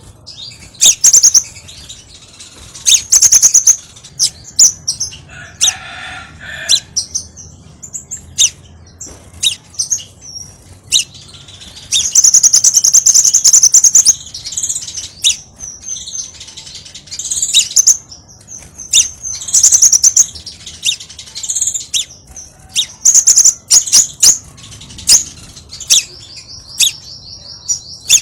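Scarlet minivet (sepah raja) calling energetically in bursts of high, thin chirps and trills, with a long chattering burst near the middle and a rapid run of even notes near the end.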